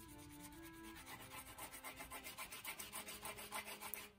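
White wax crayon scribbled hard back and forth on paper, a fast run of scratchy rubbing strokes that gets stronger after about a second. Faint background music with held notes plays underneath.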